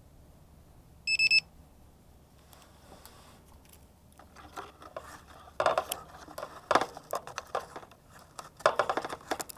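A short burst of rapid high electronic beeps about a second in, then irregular crackling and rustling handling noise that grows louder through the rest.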